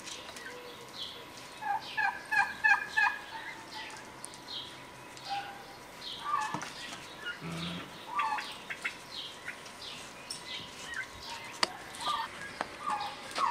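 Birds calling in a yard. A loud, quick series of rattling notes comes about two seconds in, over repeated short chirps from small birds throughout. A few light clicks sound later on.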